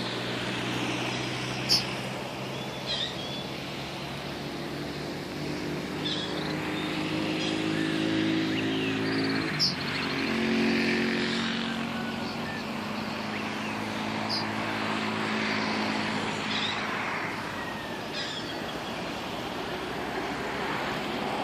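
City street ambience: steady traffic noise with a vehicle engine running nearby, its hum changing pitch about halfway through, and birds chirping now and then, with two sharper chirps standing out.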